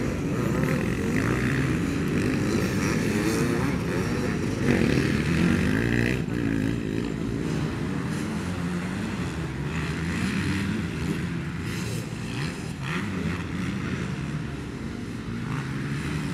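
Several motocross bikes' engines running at once on the track, overlapping and revving up and down as the riders accelerate and back off over the bumps.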